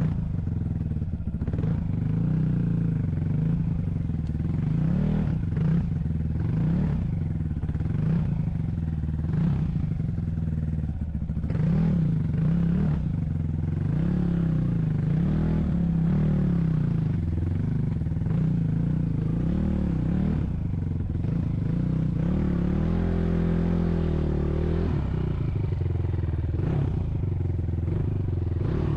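A vehicle engine running continuously, its pitch rising and falling as the throttle and load change, with rattles and clatter throughout.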